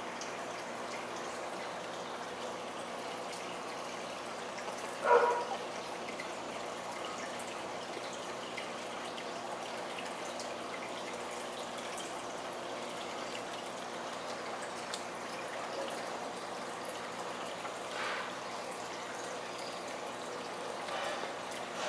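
Steady trickling and dripping of water in a small aquarium. A short, louder noise comes about five seconds in, and fainter ones come near the end.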